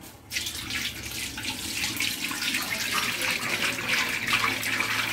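A clear liquid pouring in a steady stream from a plastic jerry can into a large aluminium pot and splashing into the herbal paste inside. The pouring starts suddenly just after the beginning and keeps up a constant splashing hiss.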